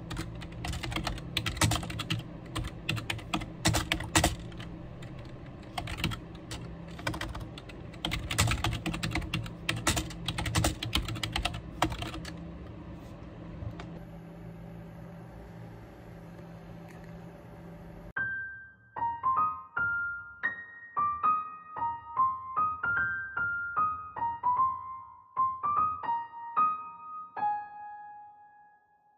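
Rapid computer-keyboard typing, dense clicking over soft background music, for about the first twelve seconds, then fading. From about eighteen seconds in, a solo piano melody plays, single clear notes.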